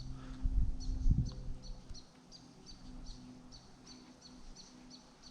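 A small bird calling a short, high two-part chirp over and over, about three times a second. Low rumbles and thumps sound in the first two seconds, then die away.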